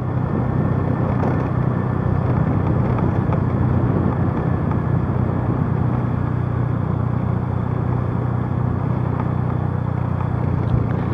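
Motorcycle running steadily while riding downhill, with an even wash of wind and road noise over a low engine hum.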